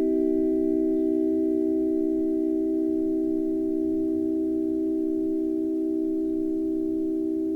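A long sustained ringing tone made of several close pitches, like a singing bowl or meditation tone, slowly fading; its faint high overtones die away about a second in.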